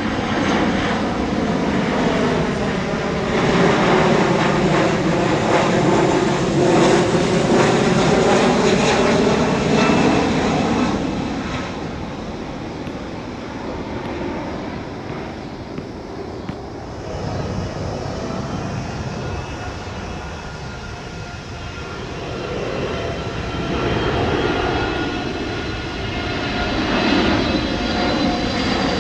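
Jet airliner engines passing overhead: a loud roar with a whine that sweeps in pitch, fading after about ten seconds. After a quieter stretch with a steady whine, another jet's engine roar builds near the end.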